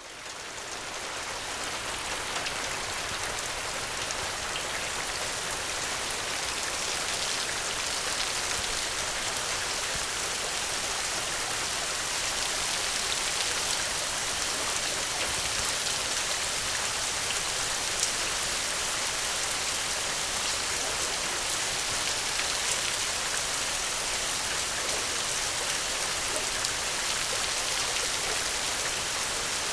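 Steady rain: an even hiss of falling water with scattered faint drop ticks. It fades in over the first second or two, then holds steady.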